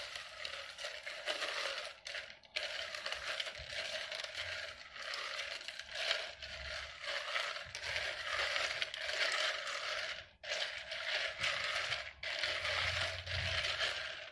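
Wooden spoon stirring potassium hydroxide into ice chunks in a pitcher: a continuous crunching, scraping grind of ice against the container, with a few brief pauses. This is lye being dissolved into frozen water.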